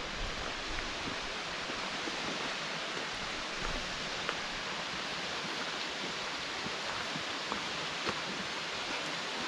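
Steady rushing of a mountain waterfall, with a few soft footsteps crunching on a gravel trail.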